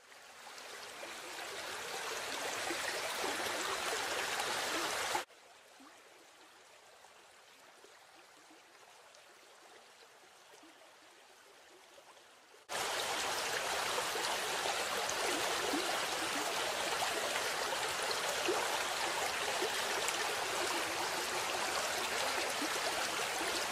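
Waterfall water rushing and splashing over rocks, a steady hiss. It fades in over the first few seconds, drops suddenly to a faint rush about five seconds in, and comes back suddenly at full level a little past halfway.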